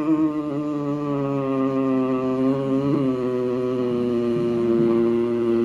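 A man's long, steady throaty drone made through a constricted throat with the chin tucked, as in ujjayi pranayama breathing with jalandhara bandha. The tone holds one pitch, with a slight shift about three seconds in.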